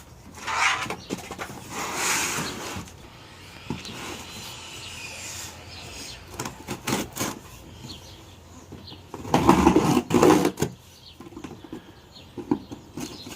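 Cardboard shipping box and its packing being handled and pulled open: several bursts of rustling and scraping, the longest and loudest near the end, with a few sharp clicks in the middle.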